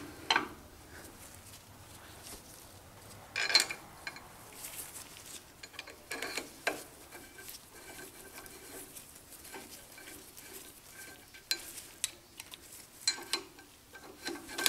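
Metal clinks and light scrapes of hand tools and steel parts being handled while a T-handle hex key turns a cap screw into a lathe cross slide. A handful of sharp clinks are spread through, the loudest about three and a half seconds in.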